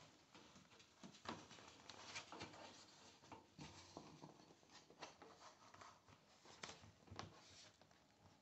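Near silence broken by faint, irregular taps and rubs of fingers pressing a self-adhesive flexible plastic quarter-round strip down along the floor edge.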